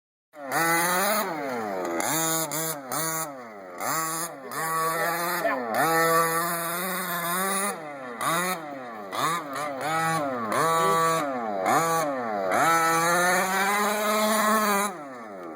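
A 1/5-scale HPI Baja 5SC RC truck's small gas two-stroke engine revving hard, its pitch rising and falling over and over as the throttle is blipped and released, with a few short drops to a lower idle.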